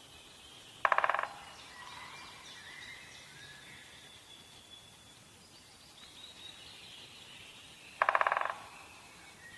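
Two loud, fast rattling farm-animal calls, each about half a second long, the first about a second in and the second near the end, over faint birdsong.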